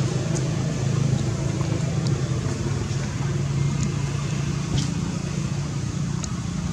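Steady low rumbling background noise, with a few faint short high ticks.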